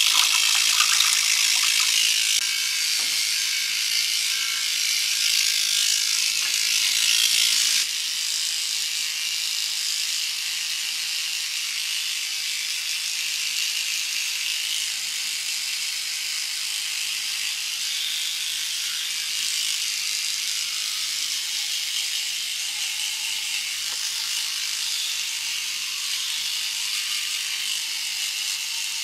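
Battery electric toothbrush running with a steady high buzz, swished in toilet-bowl water at first and then held against teeth. The buzz drops a step quieter about eight seconds in.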